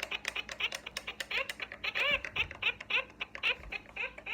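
LeapFrog Fridge Phonics toy's speaker playing a rapid run of short electronic chirps and clicks, several a second, each chirp rising and falling in pitch.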